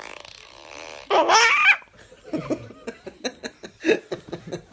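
A short buzzing fart noise, then a nine-month-old baby squeals with laughter about a second in and keeps laughing in a run of short, quick bursts.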